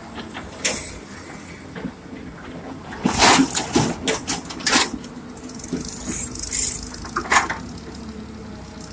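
Wheeled excavator's diesel engine running steadily while its bucket digs into soil and dumps it into a steel tractor trolley. There are crashes and clatters of earth and metal, with a dense run of them about three to five seconds in and single ones near the end.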